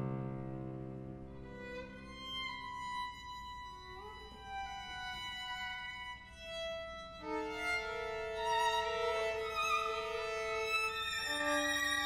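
Violins and viola playing a quiet passage of long held notes that overlap, each voice moving to a new pitch in turn. A low cello note dies away at the start.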